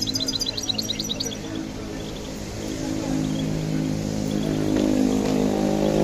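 European goldfinch twittering in a quick run of high notes for the first second or so, then going quiet. A steady low hum of several tones builds up from about halfway through and becomes the loudest sound.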